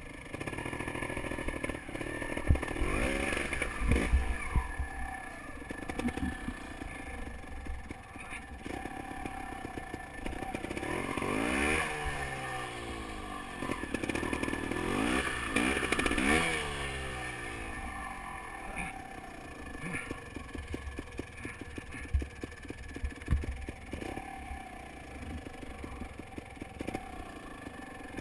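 Beta Alp 250 dual-sport motorcycle engine running at low trail speed, revving up and easing off a few times around the middle. Occasional knocks and clatter come from the bike going over the rough, stony track.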